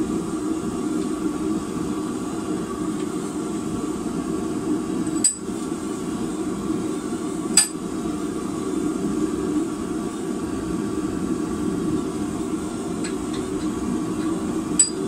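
Steel rebar being twisted in a bench vise: a few sharp metallic clinks of steel on steel, about five and seven and a half seconds in and again near the end, over a steady low rush.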